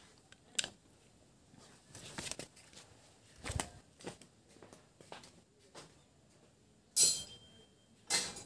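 Scattered handling noises: a sharp click, a dull thump about three and a half seconds in, and two short rustles near the end.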